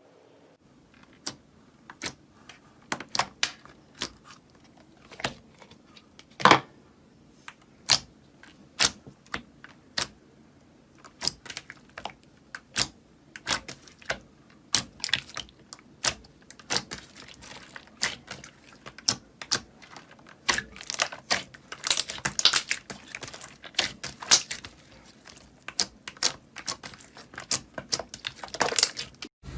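Slime being squeezed and pressed, giving many sharp, irregular clicks and pops from trapped air, sparse at first and coming thick and fast in the second half.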